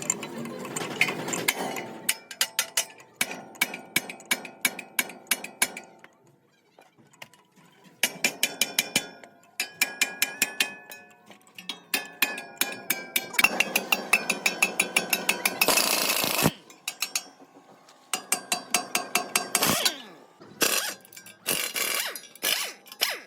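Metal tools working on a truck rear axle: rapid runs of sharp metallic clicks and taps, many ringing, in bursts with short pauses between, and a longer harsher rasp about two-thirds of the way through.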